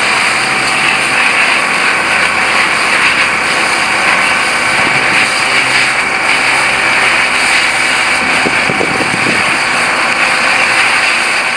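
Fire hose spraying water onto a rescuer's drysuit, a loud steady hiss, with the fire engine's pump engine running underneath.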